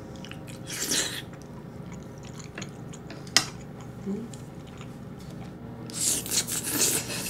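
Close-miked eating of tteokbokki: slurping up and chewing sauce-coated rice cakes, with a single sharp click about three and a half seconds in and a longer run of slurping near the end.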